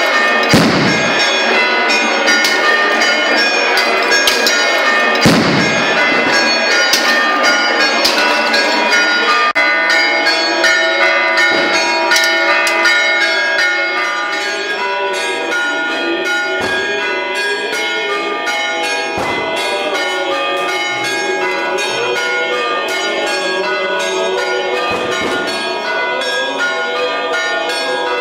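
Greek Orthodox church bells pealing continuously, the festive ringing of the First Resurrection on Holy Saturday. A few heavy thumps cut through the ringing, the loudest about half a second and about five seconds in.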